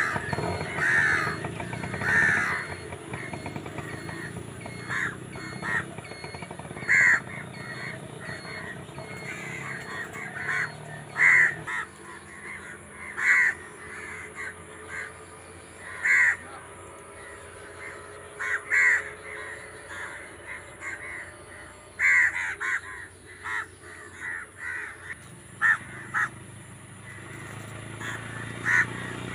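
Crows cawing again and again: short single caws every second or few seconds, some in quick pairs.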